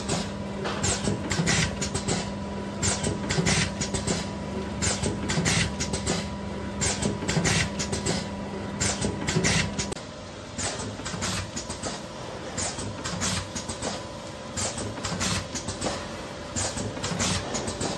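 Liquid sachet form-fill-seal packing machine running: its sealing and cutting jaws clack and release short hisses of air in a regular, repeating cycle. A steady hum underneath stops about ten seconds in.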